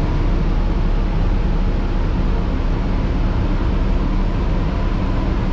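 Steady low rumble inside a transit bus with its engine running, under a faint, even high hum.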